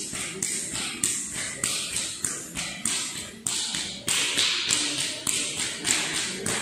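Struck percussion playing a steady dance beat: sharp ringing strokes, about two to three a second.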